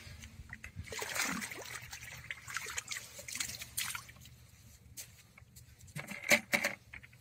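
Water pouring out of a plastic canister and splashing into shallow water as small fish are released, with a few sharp splashes about six seconds in, the loudest of them.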